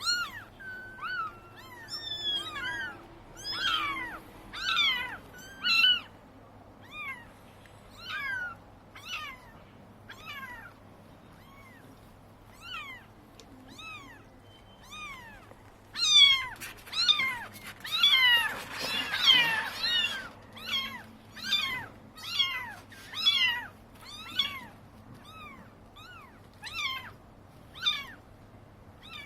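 Seagulls calling: a steady run of short cries, each sliding down in pitch, one after another, with a thick burst of many overlapping calls about two-thirds of the way through.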